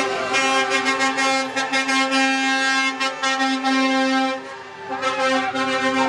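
Several vehicle horns from a passing convoy of coaches and trucks sounding together in a steady, chord-like blare, with repeated short toots over it and a brief lull about four and a half seconds in.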